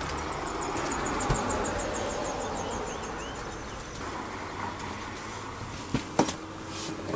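Honeybees buzzing in an opened hive, a steady hum, with a couple of sharp knocks about six seconds in as the hive is handled.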